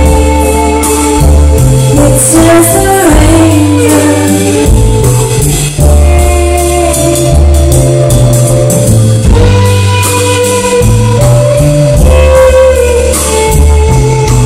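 A live band plays a pop-rock song loudly, with a female voice singing over a heavy bass line and a steady beat of percussion. The recording is very loud.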